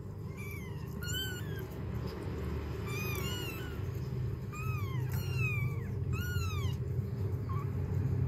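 Young kittens mewing as the mother cat licks them: about half a dozen short, high-pitched mews that rise and fall, some overlapping. A low steady rumble runs underneath and grows louder about halfway through.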